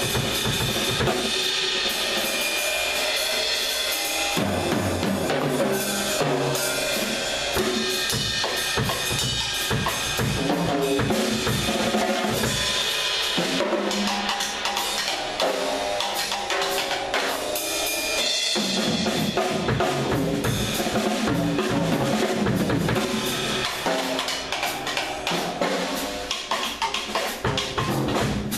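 Drum kit playing: bass drum, snare and a steady wash of cymbals, growing more uneven near the end.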